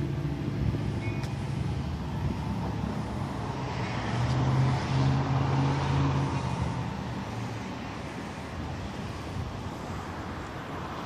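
A car passing on the street, its engine hum and tyre noise growing louder about four seconds in and fading away after about six seconds.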